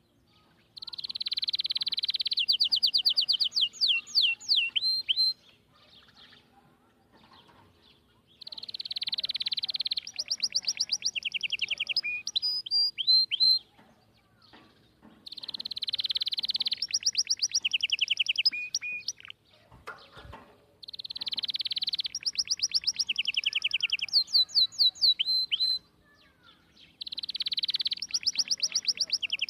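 A songbird singing the same phrase five times, about every six seconds. Each phrase begins with a buzzy high note, followed by a quick run of chirps and a few falling whistled slurs.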